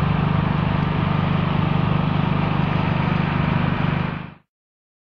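Heavy truck's diesel engine running steadily under load as it pulls an oversize load, with a deep, even hum. The sound cuts off abruptly a little over four seconds in.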